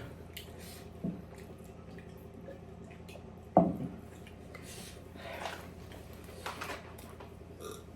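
Close-up eating sounds: small wet clicks of chewing and lip smacking, with a short voice sound about three and a half seconds in.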